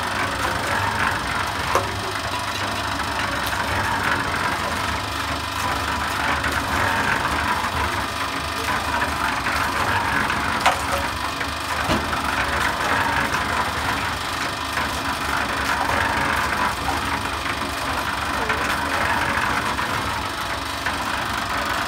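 Electric mini concrete mixer running, its drum turning and wet mortar tumbling and sloshing inside. The noise is steady, with a swish that rises and falls every few seconds and a few sharp clicks.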